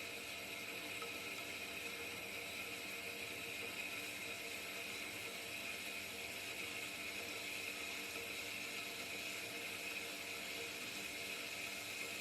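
Pilous semi-automatic metal-cutting bandsaw running steadily, its blade sawing through 5-inch solid steel round bar, with an even whir and hiss and no change in pitch.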